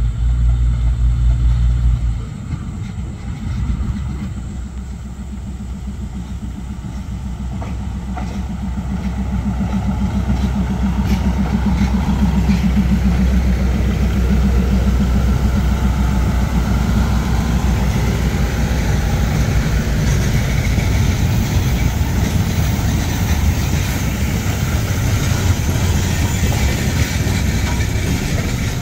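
Diesel train engine noise. A steady low hum drops away about two seconds in, then a broad rumble grows louder over several seconds and stays loud, as a train draws near and runs past.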